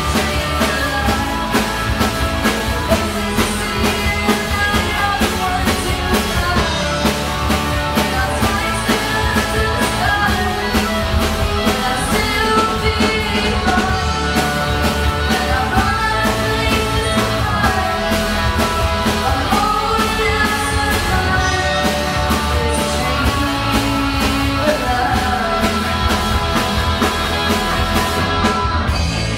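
Band playing a rock song live, with a singer over a steady drum beat.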